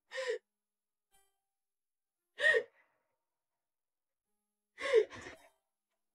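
A person sobbing with emotion during a tearful embrace: three short, breathy gasping sobs about two and a half seconds apart, the last one catching twice.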